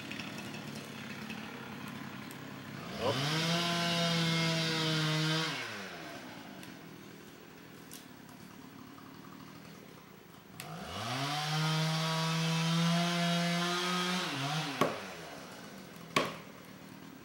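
Chainsaw revved up to full throttle twice, each run held steady for two to four seconds before dropping back to a low idle, with a few sharp knocks near the end.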